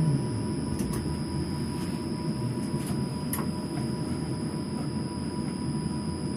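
Steady low rumble and hum inside a tram's driver's cab while the tram stands still, with a few faint ticks.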